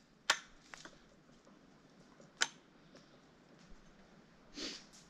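A few sharp snaps of twigs being broken off a green branch by hand, the loudest about two and a half seconds in, with a soft rustle near the end.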